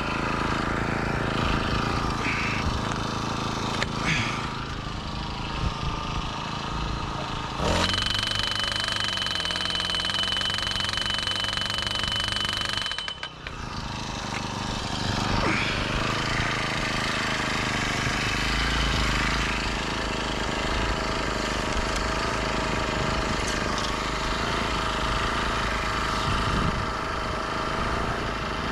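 Rhino gas-powered post driver running steadily, its engine-driven hammer pounding a 2-inch galvanized steel pipe piling down. The sound changes abruptly about eight seconds in and drops out briefly around the middle before carrying on.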